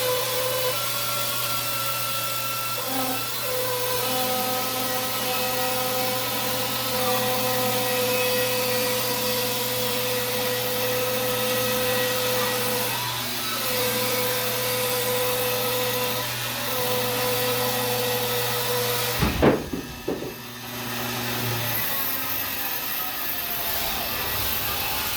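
Bandsaw running and cutting through a log, a steady sawing noise with several held whining tones over it. About nineteen seconds in there is one sharp knock, the sound drops briefly, then the saw runs on.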